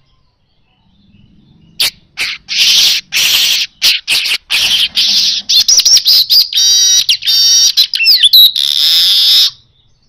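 Caged male weaver (manyar) singing. After a short pause it gives a string of clipped chattering notes, then fast rattling trills and a few quick slurred whistles. The song closes with a long buzzy wheeze that cuts off sharply.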